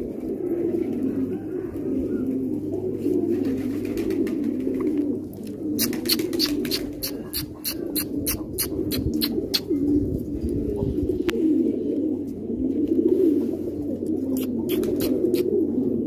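A flock of fancy pigeons cooing together in a steady, continuous chorus. A quick run of sharp clicks comes about six to ten seconds in, and a few more near the end.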